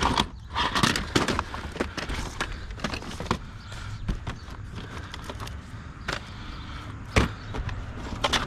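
Irregular knocks and clunks of junk being picked through and set down, a handful of separate hits spread across several seconds, over a steady low background rumble.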